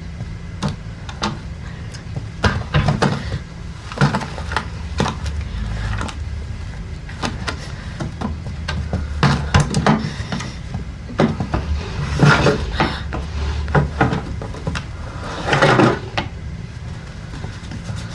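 Irregular knocks, clatters and rustling of someone hurriedly rummaging among wooden card-catalogue drawers, cupboards and papers, over a low steady hum.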